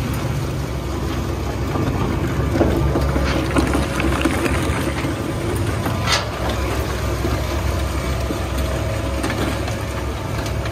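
Plastic shredder running with a steady low hum, with irregular cracks and clatters as it cuts plastic into flakes; one sharp crack about six seconds in.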